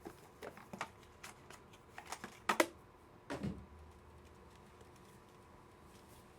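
Light clicks and taps of hands opening a mystery card box and handling the cased card inside, with a soft knock about three and a half seconds in.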